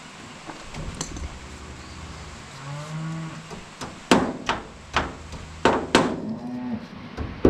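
Hammer striking the steel end of a finger-wheel shaft on a corn picker's husking bed, driving it to slide it forward: about five sharp metallic blows in the second half, spaced roughly half a second apart. Before the blows comes a short pitched sound with a wavering pitch.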